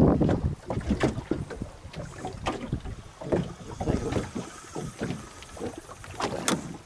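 Wind buffeting the microphone on a small open boat at sea, with an uneven low rumble and irregular knocks and splashes around the hull. A sharp click stands out about six and a half seconds in.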